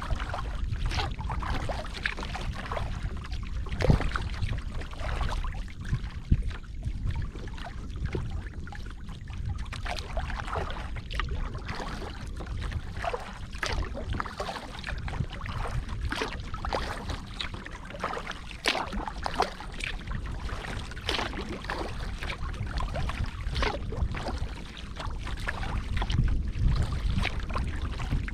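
Kayak paddle strokes: the paddle blades dip and splash in the water every second or two, over a steady low rumble.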